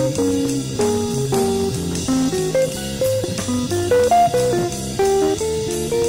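Instrumental music in a jazz-blues vein: a guitar plays a melody of separate plucked notes over a bass guitar and a drum kit, with no singing.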